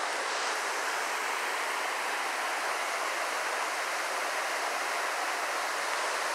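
Mountain creek rushing over rocks in small rapids: a steady rush of water.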